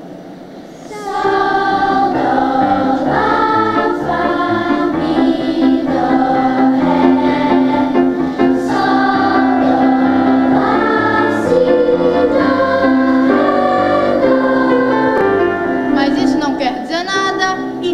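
Children's choir singing in parts, joining together the solfège phrases it has just sung one by one, with a steady held lower note under the moving upper voices. The singing starts about a second in.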